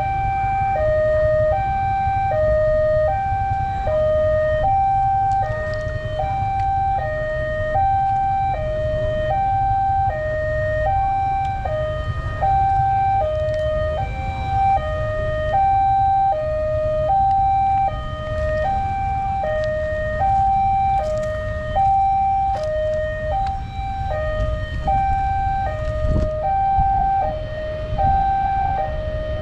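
Indonesian railway level-crossing warning siren sounding its two-note alternating tone, E-flat and G, each note held about 0.7 s. A steady low rumble runs underneath, and near the end a second two-note pattern at slightly different pitches overlaps briefly.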